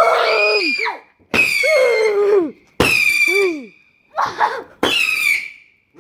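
A firework cake firing whistling shots one after another: about five shrill whistles, each about a second long, each starting sharply and sliding slightly down in pitch.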